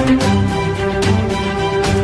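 Background music with sustained held notes over a steady beat.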